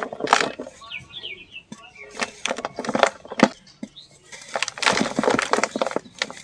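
Dry sand-and-cement chunks crumbling and being crushed: a quick run of sharp crunches and crackles, thickest near the end.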